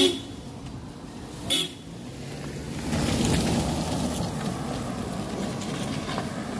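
Two short car-horn toots about a second and a half apart, then a car passing close by on a wet road, with a steady swish of tyres on the wet asphalt.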